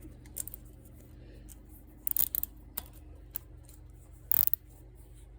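Plastic zip tie being pulled through its ratchet head in short rasps and clicks, with a longer, louder pull about four seconds in.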